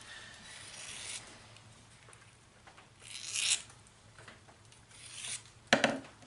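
Small 6-inch triangle file scraping lightly across the steel edge of a broadhead in three strokes, raking off the burr to finish the edge. A sharp knock near the end.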